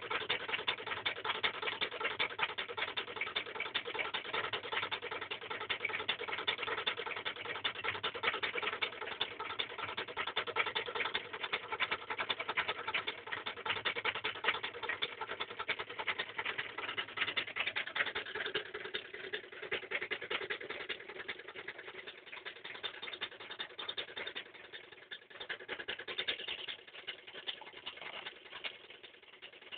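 Reed-switch magnet pulse motor running: a fast, continuous clicking buzz from the switch and coils firing as the magnet rotor spins. About two-thirds of the way through it gets quieter and drops a little in pitch.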